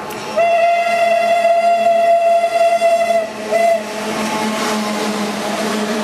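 Steam-locomotive-style whistle sounded by a pair of Indian Railways WAG-5 electric locomotives running in multiple: one long steady blast of about three seconds, then a short toot, followed by the rumble of the approaching train.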